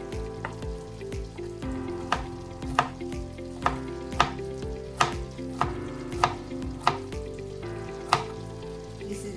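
Knife chopping garlic on a cutting board: about ten separate sharp chops at an uneven pace, over background music.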